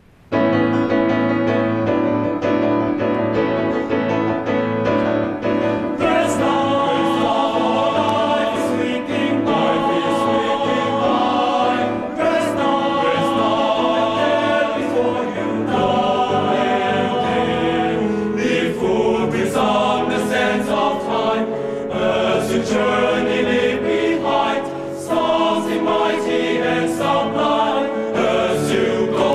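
Boys' school choir singing in several parts, accompanied by a grand piano.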